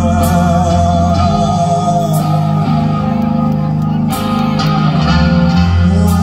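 Rock band playing live: heavy distorted electric guitars and bass under a sung vocal line that wavers on a held note in the first two seconds, with drum strokes landing about every two seconds.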